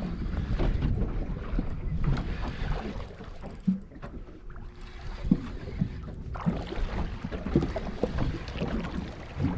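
Water lapping and slapping against a small boat's hull, with wind rumbling on the microphone and a few light knocks.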